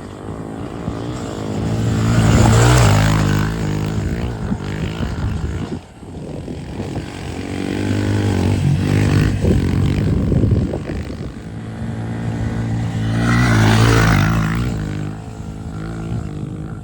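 Honda CRF110 pit bike's single-cylinder four-stroke engine revving hard on a high-speed run, the pitch and level climbing and falling three times, with a short drop about six seconds in.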